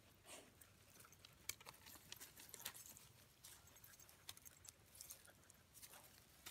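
Faint, irregular scratching and scuffing of Thai Ridgeback dogs digging in dry dirt with their paws, a scatter of short crackles with no steady rhythm.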